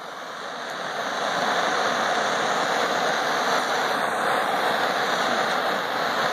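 Gas torch burning with a steady rushing hiss of flame, growing louder over the first second and a half and then holding steady.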